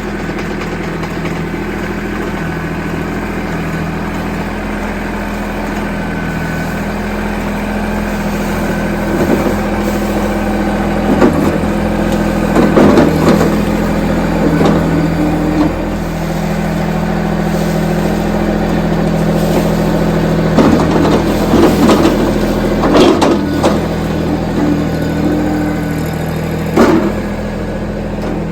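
Tractor engine running steadily, with a series of sharp clanks and knocks over it through the middle and later part.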